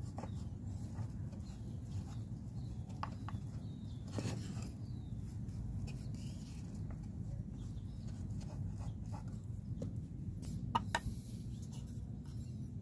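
Quiet handling sounds of glue being brushed onto pine joint pieces, with scattered light wooden clicks and a few sharper knocks near the end as the pieces are handled, over a steady low background hum.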